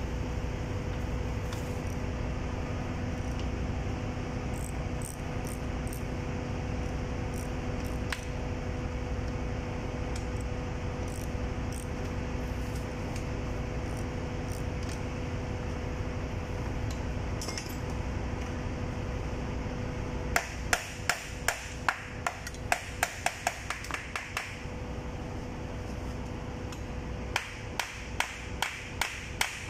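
Steady machinery hum throughout. Past the middle comes a run of sharp metallic clicks, about three a second, from spanners working the bolt of the pump's body clamp, and a second run near the end.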